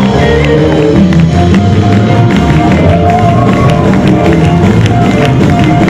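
Loud live gospel band playing a praise break: drum kit, keyboard and guitars, with drum hits keeping a steady beat.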